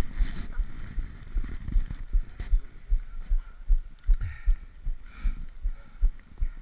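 Running footfalls jolting a body-worn action camera: dull low thumps about three a second, in a steady running rhythm.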